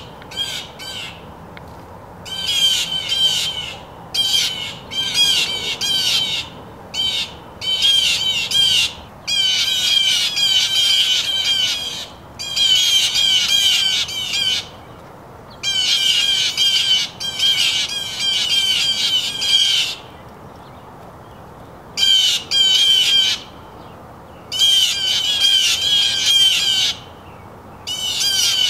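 A bird calling in bouts of fast, harsh repeated notes, each bout lasting one to three seconds with short pauses between.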